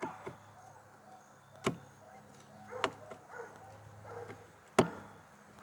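Screwdriver tightening screws into a new plastic shore power hatch on a popup camper: three sharp clicks, the last the loudest, over a faint low hum.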